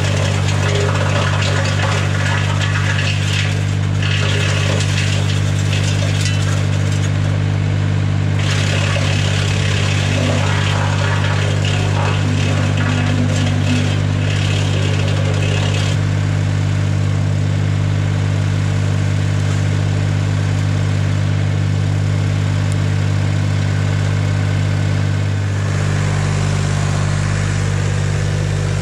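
BX52 PTO-driven wood chipper running off a tractor: a loud, steady drone, with a rough, irregular clatter over roughly the first half that then settles into a smoother, even running sound.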